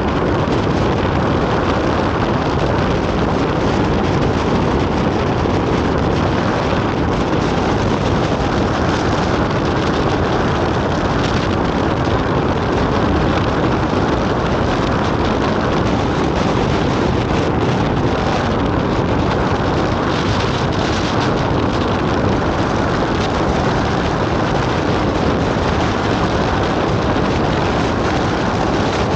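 Loud, steady rush of wind buffeting the microphone, with the noise of a vehicle driving beneath it.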